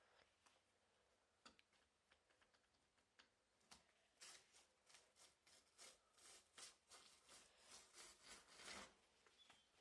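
Faint scratching of a razor blade cutting through PhotoTex sticker material, trimming the excess along the bottom of a door. There are a few scattered light clicks at first, then from about four seconds in a quick run of short scraping strokes, about three a second, as the blade is drawn through the material again and again.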